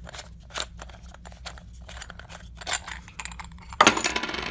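Handling noises from a cheap plastic flashlight being taken apart: a run of small clicks and scrapes as its front end is worked off, then a louder clatter near the end.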